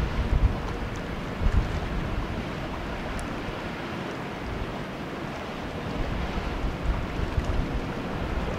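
Wind blowing on the microphone over a steady hiss of wind and river water, with low buffeting gusts about a second and a half in and again near the end.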